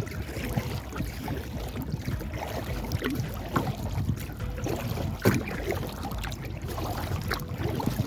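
Sounds of a kayak on the water: water moving around the hull, irregular knocks and clicks from the boat and gear, and a steady low wind rumble on the microphone.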